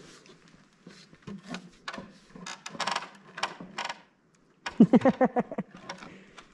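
Knocks and clicks on a wooden ladder, with a louder short creak about five seconds in.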